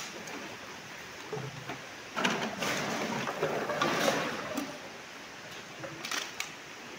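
A plastic sack of plastic waste and bottles rustling and crackling as it is tipped out into a concrete tank, loudest from about two to five seconds in, with a few light ticks near the end.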